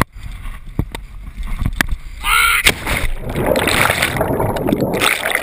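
A short yell, then a splash into a lake a little under three seconds in, followed by the churning, bubbling rush of water around the submerged camera. Before the yell, low wind rumble and a few knocks come from the rope swing and the camera's mount.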